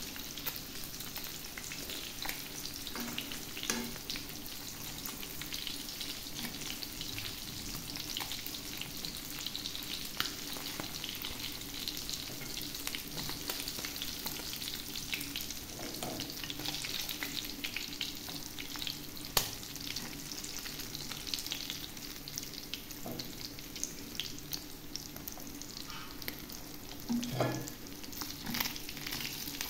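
Small whole fish shallow-frying in oil in a nonstick pan: a steady sizzle with oil popping and spitting. A fork scrapes and taps against the pan now and then as the fish are turned.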